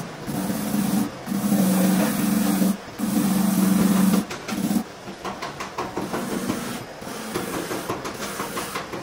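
Electric angle grinder with an abrasive disc buffing the rubber of a car tyre sidewall, preparing it for a cut repair. The motor's steady whine cuts in and out in several bursts in the first half, then gives way to a rougher, uneven rasp of the disc on rubber.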